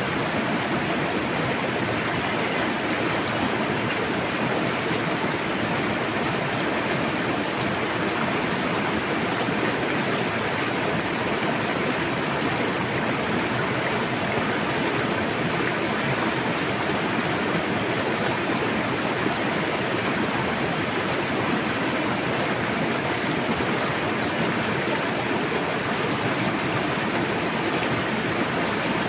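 River water rushing and splashing in a steady, even roar, with no change in level.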